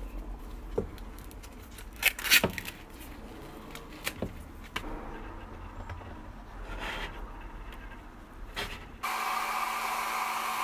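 Scattered clicks and scrapes of gloved hands handling perspex and plywood parts, the loudest about two seconds in. About nine seconds in, a Braun Satin Hair 1 hair dryer switches on and blows steadily with a low hum under its rushing air.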